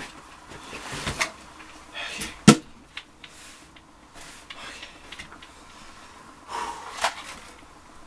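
Clatter of household things being picked up, moved and set down: scattered knocks and rustles, the loudest a single sharp knock about two and a half seconds in.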